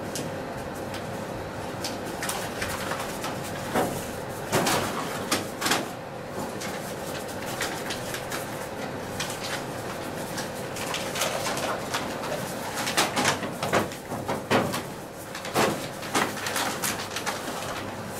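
Paper shopping bags being handled and set down on a floor, giving a dozen or so irregular rustles and knocks over a steady faint hum.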